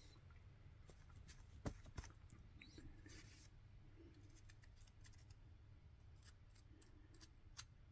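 Faint scrapes and light clicks of a small metal spatula working JB Weld epoxy putty into a cracked plastic barometer housing, with two sharper clicks about two seconds in.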